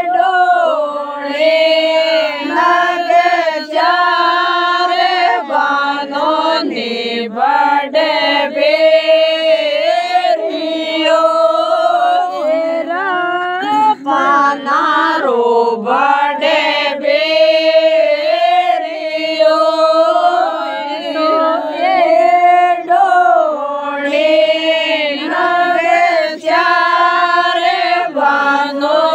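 Folk wedding song (vivah geet) sung in a bending, ornamented melody with no percussion.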